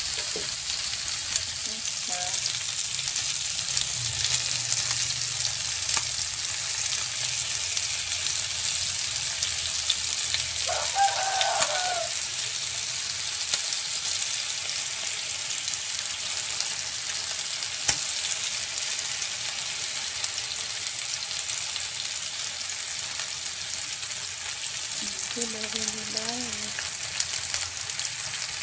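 Chicken pieces glazed with sweet soy sauce sizzling steadily in an open double-sided nonstick grill pan, a continuous frying hiss.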